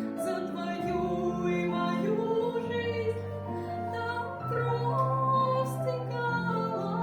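Slow Christian song: a singing voice carries a gliding melody over low held accompaniment notes.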